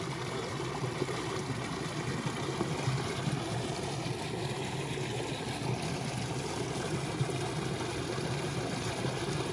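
An engine running steadily, heard as an even low drone with no breaks or changes.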